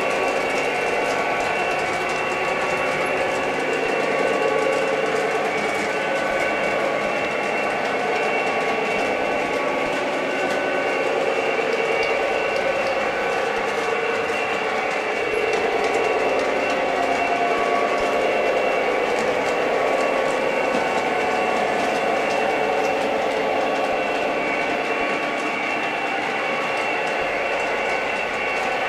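O gauge model freight train pulled by two EMD GP30 diesel locomotive models, running steadily on three-rail track. A continuous diesel engine drone plays throughout, with faint wheel clicks over the rails.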